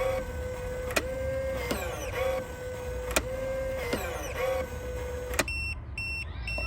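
Keypad deadbolt's small electric motor whirring steadily as it tries to throw the bolt, broken by several clicks, then stopping about five and a half seconds in and giving way to a quick run of short high beeps. The beeps signal that the lock failed because the bolt was not lined up with the strike.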